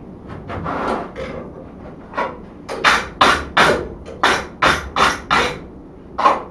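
Hammer blows on a wooden block laid over a hot four-rod twisted bar on the anvil, straightening it without marring the twists. A softer clatter comes about a second in, then about nine sharp blows, roughly three a second, from about two seconds in.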